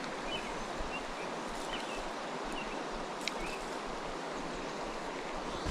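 Creek water running, a steady rushing hiss.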